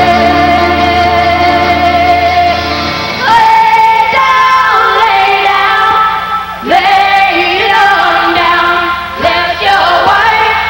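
Live folk-rock music: female voices singing in harmony over acoustic guitar. One long held note for about the first three seconds, then several voices in sliding, overlapping lines.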